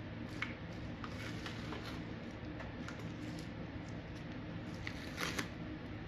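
Masking tape and a clear plastic sheet being peeled off hardened fiberglass resin, crackling and rustling in short irregular crackles, the loudest a little past five seconds in. A steady low hum runs underneath.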